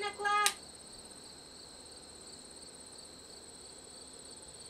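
Crickets chirping steadily in a high-pitched, evenly pulsing chorus. About half a second in, after a short pitched call, a single sharp crack is the loudest sound.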